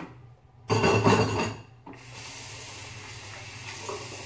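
A loud scraping, clattering noise for about a second, then a kitchen tap running steadily into the sink.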